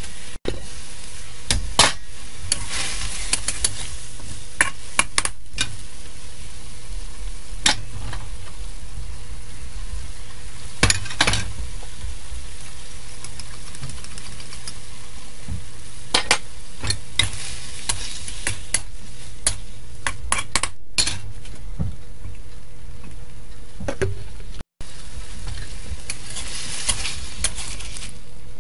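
Beef and Chinese broccoli sizzling as they are stir-fried in a steel wok. A spatula scrapes and clacks against the metal in irregular strokes.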